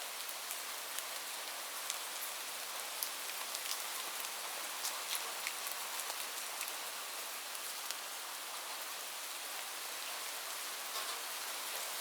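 Light rain falling steadily: an even hiss with many separate drops ticking sharply on a surface.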